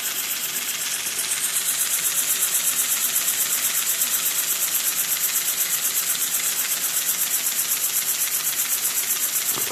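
Miniature steam engine running steadily, its exhaust hissing in quick, even puffs at about six a second, picking up slightly a second or so in.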